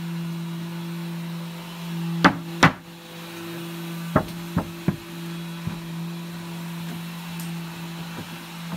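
Wooden knocks as the plywood cabinet is handled on the bench: two loud knocks about two seconds in, then three lighter ones a second or two later, over a steady low hum.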